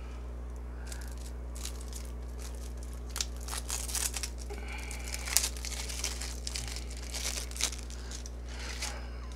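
Trading card packaging crinkling and tearing as a fresh deck is unwrapped by hand, in irregular crackles that are busiest in the middle.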